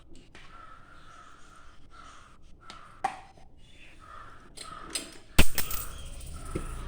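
Crows cawing faintly in the background in short repeated calls, with a few light clicks and one sharp knock about five and a half seconds in, after which a low hum sets in.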